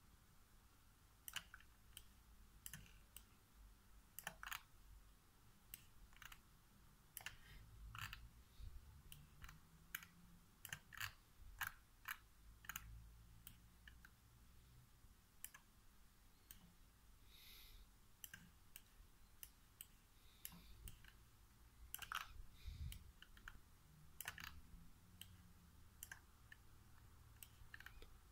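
Faint, irregularly spaced clicks from a computer's pointing device, pressed and released as items are dragged across the screen.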